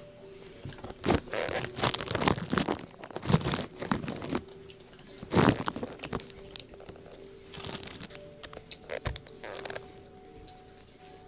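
Close rustling and crinkling handling noise in irregular bursts, loudest about one, three and five seconds in, as takeout packaging and the camera are handled during eating, over a faint steady hum.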